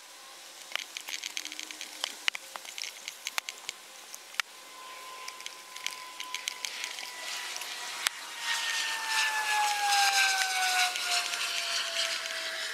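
Cling film crinkling and clicking as sticky plumber's mate putty is pressed by hand into a steel pellet catcher, the crinkling growing louder in the last few seconds. From about four seconds in, a steady hum slowly falls in pitch underneath.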